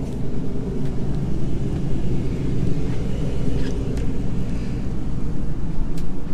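A 15,000 BTU RV air conditioner running with a steady low hum.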